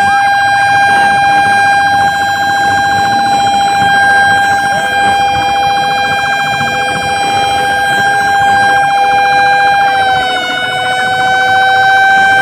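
Fire truck's warning siren sounding a loud, steady held tone, with a lower second tone joining about five seconds in. The pitch sags briefly about ten seconds in, then recovers.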